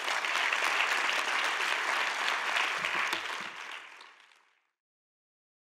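Lecture audience applauding, a dense clapping that fades out after about four and a half seconds.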